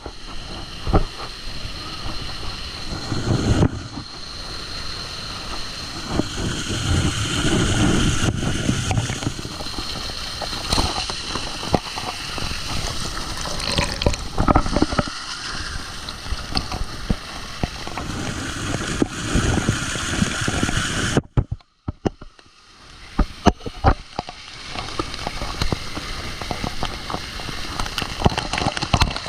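Water splashing and gurgling, with scattered knocks, cutting out briefly about 21 seconds in.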